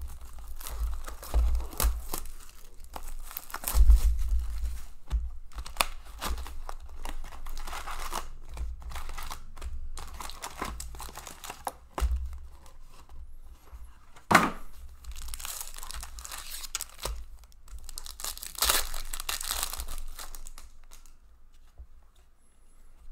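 A 2019-20 Upper Deck Series 2 hockey card box and its foil packs being torn open and handled: irregular tearing and crinkling of cardboard and wrappers, with low bumps against the table in the first few seconds. There is one sharp click about two-thirds of the way through, and a longer tear a little after it.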